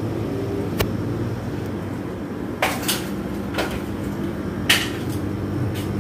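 Steady hum of Panasonic split air-conditioner outdoor units running, broken by several sharp clinks and knocks. The loudest knock comes about three-quarters of the way through.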